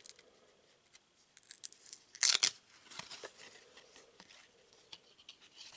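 Glossy trading cards being slid apart from a stack in the hands: faint rustles and small clicks, with one louder scrape a little over two seconds in.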